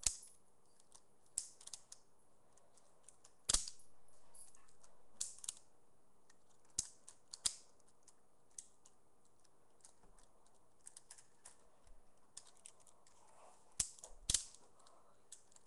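A Lego-brick balisong (butterfly knife) being flipped: irregular sharp plastic clicks and clacks as the handles swing round and strike each other. The loudest come about three and a half seconds in and near the end.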